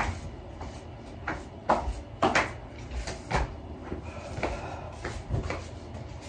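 Irregular soft knocks and rustles of bedding being straightened and pillows set down while a bed is made, the loudest a little before and after two seconds in, over a steady low room hum.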